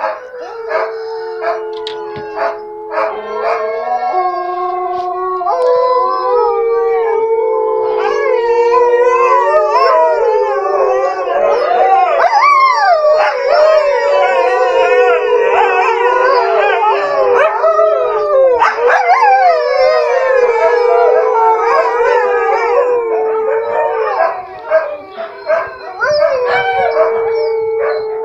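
Several huskies howling together, long wavering howls overlapping in a chorus. One or two voices hold steady at first, more join in about a third of the way through, and the chorus thins briefly near the end before a long howl rises again.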